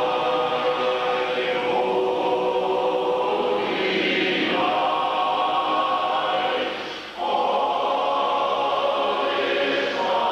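Men's barbershop chorus singing unaccompanied in close harmony, holding long sustained chords, with a brief break about seven seconds in before the next chord.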